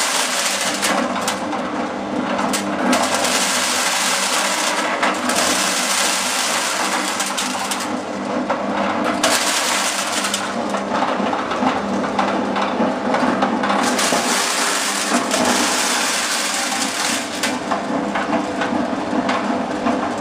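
Small corn threshing machine running with a steady hum, over a dense crackling and rattling of corn kernels being stripped and thrown, which grows louder and eases every few seconds.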